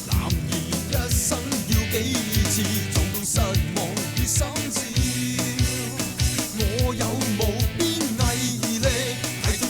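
Up-tempo rock-pop song with a steady drum-kit beat, guitar and a singing voice: the drama's closing theme.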